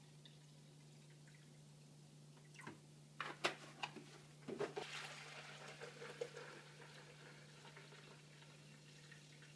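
A few sharp clicks and knocks of handling, then a mix of water and distilled vinegar being poured into a drip coffee maker's reservoir, the pour fading out over a couple of seconds. A faint steady hum lies underneath.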